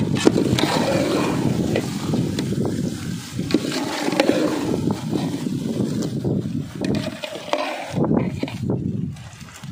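A long metal ladle stirring thick chicken gravy in an aluminium pot, with scattered scrapes and clicks against the pot over a steady low rumble.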